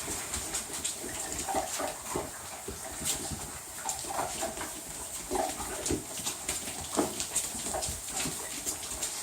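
Six-week-old puppies whining and yipping in short, high calls scattered throughout, amid frequent small clicks and scuffles.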